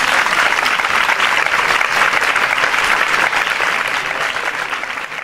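A large audience applauding: dense, steady clapping that begins to ease off near the end.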